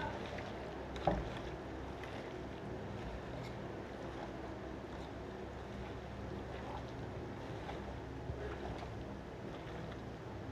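A hand mixing chicken marinade of curd, spices and sliced onion in a steel bowl: faint wet squelches and light ticks over a steady low background hum, with one sharper knock about a second in.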